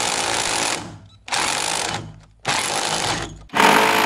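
Makita DHR202 cordless rotary hammer drilling brick with a 67 mm core bit, in four short bursts that each start hard and trail off: the battery is running flat.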